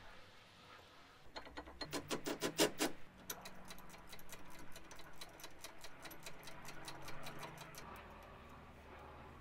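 Hand ratchet clicking as a Brembo brake caliper's mounting bolts are wound in. Quick clicking starts about a second in, then settles into a steady run of about six clicks a second and stops near the end.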